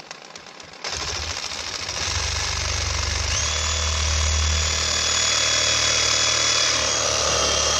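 Reciprocating saw cutting through white PVC pool pipe. It starts in short stabs, then runs steadily from about a second in, and its motor whine steps up in pitch partway through.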